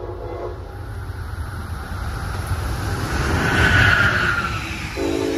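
Amtrak passenger train with an electric locomotive passing at speed. A short horn blast at the start, then the rush of wheels on rail building to a peak about four seconds in, then the horn again, lower in pitch, near the end.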